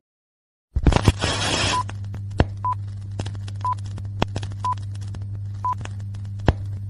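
After a brief silence, a steady low electrical hum with scattered crackling clicks. Over it, short high electronic beeps repeat about once a second.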